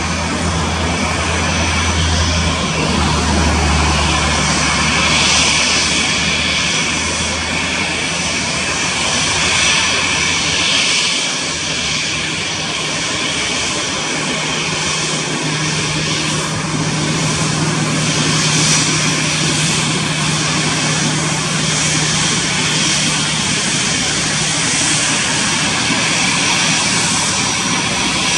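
Airbus A320 jet engines running at taxi power as the airliner rolls past close by: a steady engine rush with a thin high whine over a low rumble.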